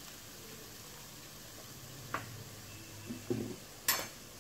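Onions and chilli paste frying gently in a non-stick pan on low flame: a faint steady sizzle, with a light click about halfway through, a few soft knocks and a sharper click a little before the end.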